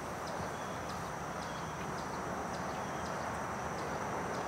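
Background ambience during a moment of silence: a steady low hiss with a faint thin high tone and faint high ticks, a couple a second.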